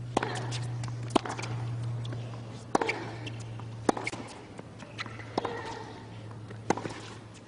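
Tennis rally: a ball struck back and forth with racquets, about six sharp hits one to one and a half seconds apart, over a low steady hum.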